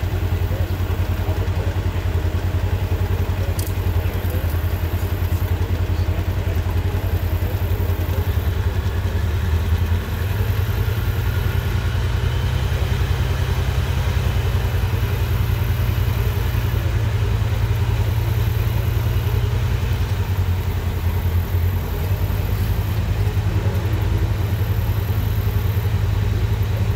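Off-road vehicle engine running steadily at low revs, with small shifts in engine speed about ten and twenty-one seconds in.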